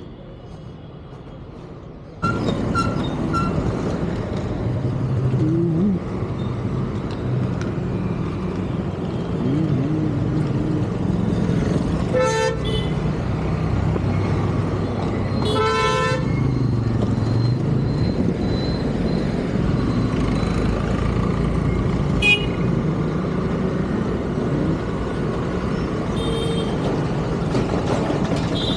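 Busy road traffic with engines running, getting louder about two seconds in, and vehicle horns honking several times: two longer honks around twelve and sixteen seconds in, and a few short toots later.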